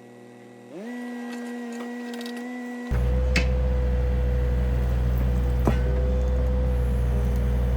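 John Deere 35D mini excavator's diesel engine and hydraulics running. A whine rises about a second in, and about three seconds in the engine becomes louder and deeper and holds steady, with two sharp knocks.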